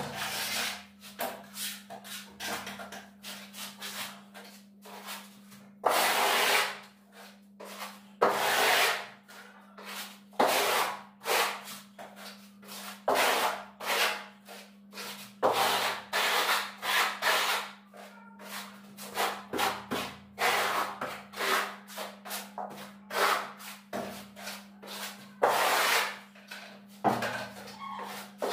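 Hand plastering trowel scraping and rubbing textured bark-beetle (koroed) decorative plaster across a wall in repeated, irregular strokes, a few of them louder and longer, about a second each. A steady low hum runs underneath.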